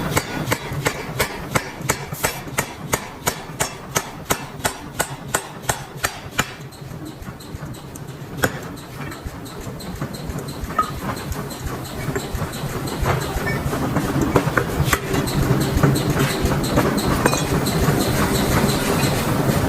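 Metalworking machinery in a flange factory: a quick run of sharp, evenly spaced metallic impacts, about three a second, for the first six seconds or so. Then steady machine running with a low hum and occasional knocks, gradually getting louder.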